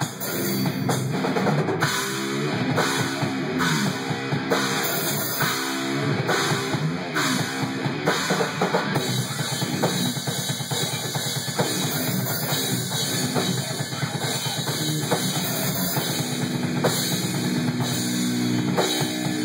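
Rock band playing live: a Ludwig drum kit with bass drum and cymbals and an electric guitar through an amplifier. About halfway through the drumming turns to a fast, dense beat.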